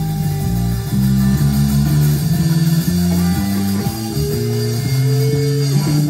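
Music: a low line of notes stepping up and down in quick succession.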